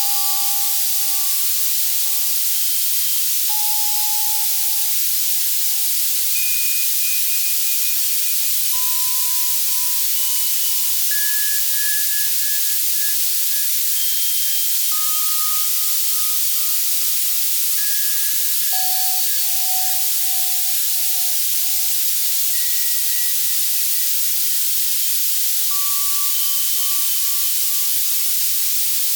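Steady white-noise hiss synthesized on an Access Virus C, brightest at the top end, for tinnitus masking. Single synthesized bell notes ring out over it at scattered pitches, a new one every second or two, each fading away over one to three seconds.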